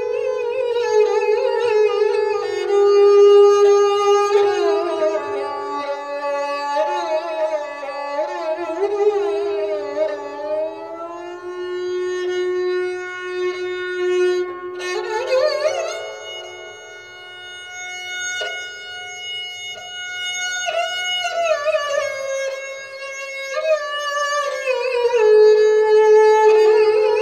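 Sarangi played solo with a bow: a melody in raag Mishra Bhairavi of held notes that slide between pitches, with a short break about halfway before a new note swells in.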